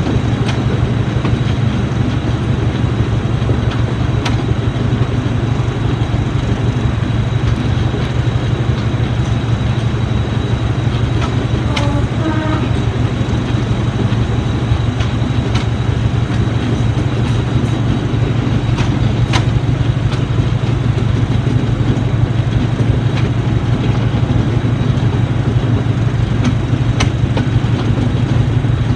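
Class 73 electro-diesel's English Electric diesel engine running steadily with a deep constant note, heard close alongside the cab, over a continuous rush of the moving train and a few sharp clicks from the wheels on the track.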